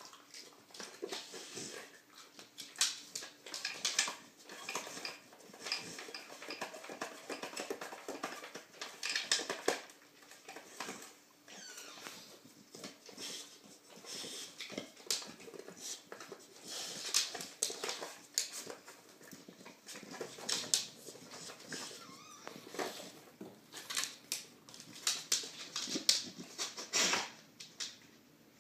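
A dog nosing and pawing at a round plastic treat-puzzle feeder, giving a long run of irregular plastic clicks, taps and clatter as the lids slide and the disc shifts on the floor.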